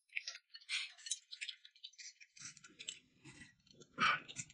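Quiet small clicks and rattles of a spoon working white powder in a small glass jar, with a short burst of water poured into the jar from a plastic jug about four seconds in.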